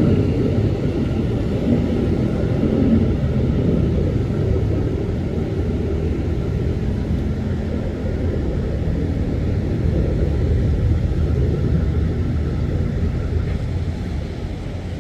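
Airbus A321 jet airliner's turbofan engines at takeoff power, a steady low rumble that eases off a little near the end as the plane departs.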